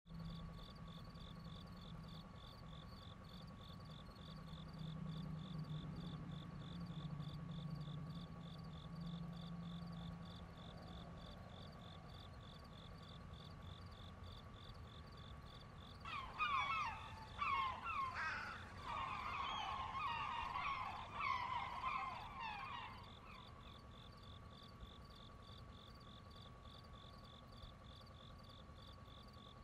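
Faint rural outdoor ambience: insects chirping steadily in a fast, even pulse with a second steady insect tone beneath, and a burst of bird calls from about halfway through that lasts several seconds. A low hum sits under the first third.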